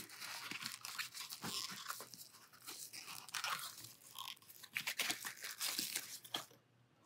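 Thin plastic wrapping and a cardboard box being handled and pulled apart: quiet, irregular crinkling and crackling that stops about six and a half seconds in.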